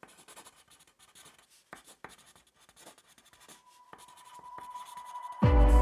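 Pencil scratching on paper, with scattered light taps and strokes. About halfway through a thin steady tone comes in and swells, and just before the end a loud music hit with deep bass cuts in.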